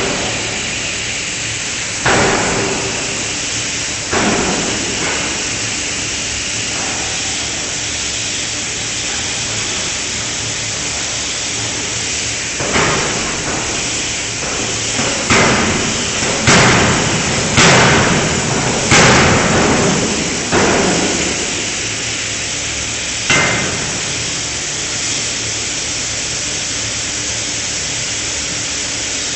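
A 5-ton electro-hydraulic closed-die forging hammer striking a connecting-rod forging. There are nine heavy blows, each ringing briefly: two early ones about two seconds apart, a quicker run of six between about halfway and two-thirds through, and a last one a little after that. A steady loud hiss runs underneath.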